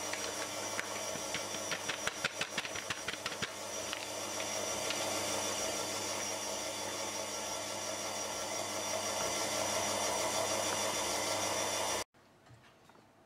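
Electric stand mixer running steadily, its flat beater churning cheesecake batter in a steel bowl as pudding powder is beaten in, with a run of quick ticks in the first few seconds. The motor sound cuts off suddenly about twelve seconds in.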